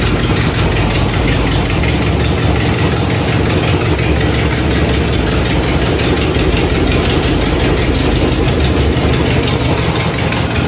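Box-body Chevy Caprice engine idling loud and steady, with an exhaust leak that the owner puts down to a bad donut gasket.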